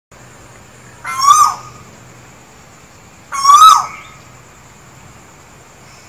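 Male Asian koel calling twice, two loud calls about two seconds apart, each rising and then falling in pitch.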